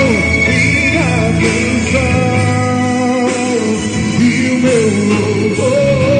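A voice singing a slow Christian worship song over band accompaniment, holding long notes with a wavering vibrato.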